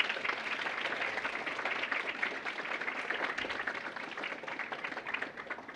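Audience applauding, a dense spread of many hands clapping that dies away near the end.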